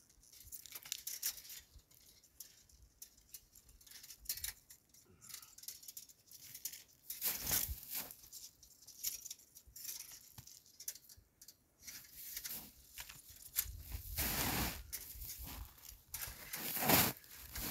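Irregular rustling, scraping and crunching as a cow hide is handled and tied down on the snow, with boots shifting in crusted snow and dry grass. The handling grows louder in a stretch about two-thirds of the way in and again near the end.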